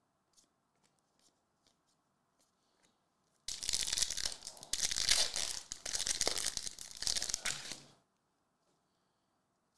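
A hockey card pack's wrapper is torn open and crinkled, a loud rough tearing lasting about four seconds that starts sharply a few seconds in. Before it there are a few faint clicks of cards being handled.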